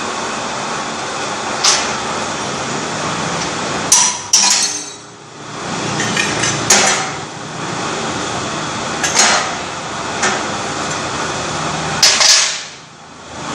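Automatic multi-wire brick cutting machine running with a steady mechanical noise, broken by sharp metallic clanks every few seconds as its parts strike and move.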